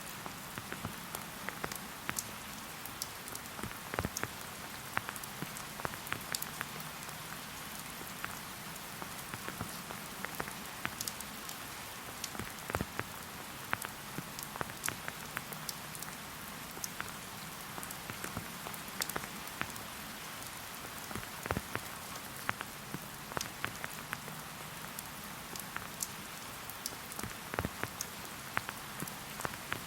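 Steady rain falling in a forest, a soft even hiss with frequent, irregular louder drops striking close by.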